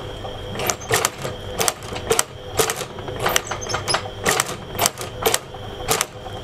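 Cobbler's heavy shoe-stitching machine working a shoe stitch by stitch: sharp mechanical clacks about twice a second at uneven spacing, over a faint steady whine.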